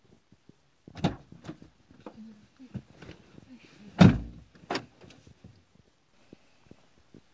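Clicks and knocks inside a Mazda3's cabin as someone settles into the driver's seat, with a heavy thump about four seconds in and a sharp click just after.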